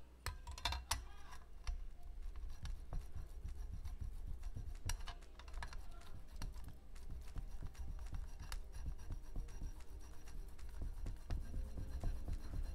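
Block of paneer being grated on the fine side of a stainless steel grater: a quick, irregular run of dry scratchy rasping strokes.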